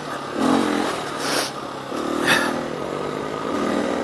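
Husqvarna FE350 dirt bike's single-cylinder four-stroke engine running as the bike rides along, with three short bursts of rushing noise over it.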